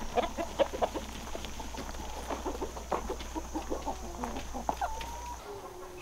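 A flock of chickens clucking: many short, overlapping clucks that thin out near the end.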